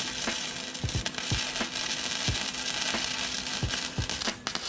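Electric arc welding on a steel bracket: a steady, continuous crackle and sizzle from the arc.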